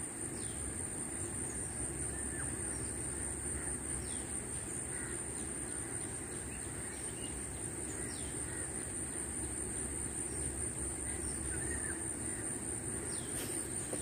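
Riverside outdoor ambience: a steady high-pitched insect drone with scattered short bird calls over a low, even rushing noise.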